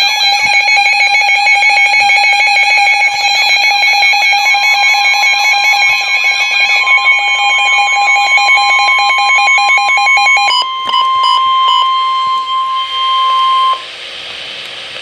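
NOAA Weather Radio receiver sounding a loud, rapid electronic alarm for a severe thunderstorm warning. About four seconds in, the steady 1050 Hz weather-warning alert tone joins it. The alarm changes to slower on-off beeps near eleven seconds, and the tone cuts off near the end, leaving radio hiss.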